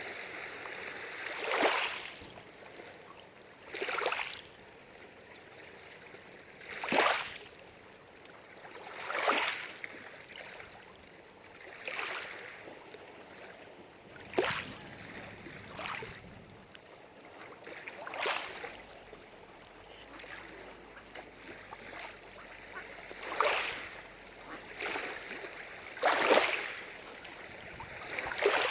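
Small waves lapping against the lake shore, a short splashing swell every two to three seconds over a steady low wash of water.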